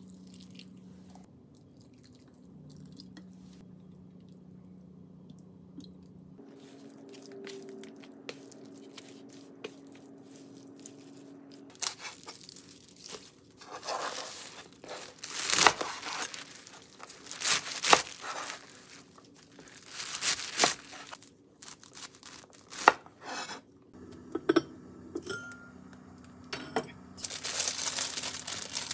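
Chef's knife cutting crisp green chives on a cutting board: loud crunching strokes at uneven intervals, about a second or two apart, after a quiet start. Near the end a plastic bag of udon noodles crinkles as it is handled.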